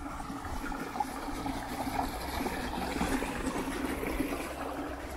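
Shallow forest stream running and babbling over stones and small cascades.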